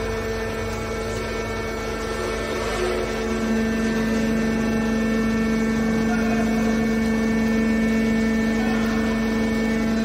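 Hydraulic power unit of a Y81-125 scrap metal baler running with a steady hum. The hum grows louder about three and a half seconds in and then holds steady.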